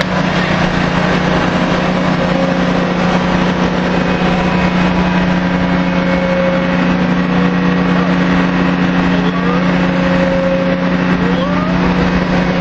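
Drilling rig machinery running steadily during casing running: a loud, even engine-like drone with a constant low hum. A few short rising whines come in over it a few seconds before the end.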